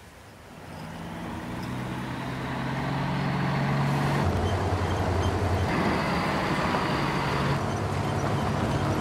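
Truck engine approaching, growing louder over the first few seconds and then running steadily, with its note shifting abruptly a couple of times.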